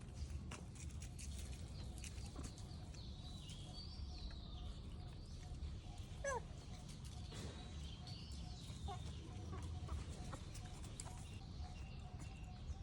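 Faint outdoor ambience: a steady low rumble with scattered short chirping animal calls, and one brief call that falls steeply in pitch about six seconds in.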